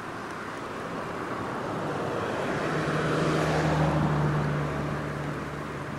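A motor vehicle passing by on the road, its tyre and engine noise swelling to a peak about four seconds in and then fading, with a steady low engine hum underneath.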